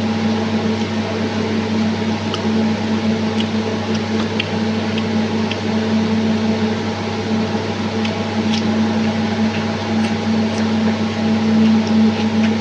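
Steady electric motor hum, like a fan or appliance running, with a few faint scattered clicks over it.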